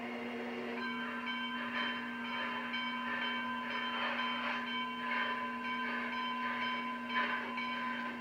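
Steam locomotive approaching along the track: a steady ringing of several held tones, with irregular puffs of steam and hiss.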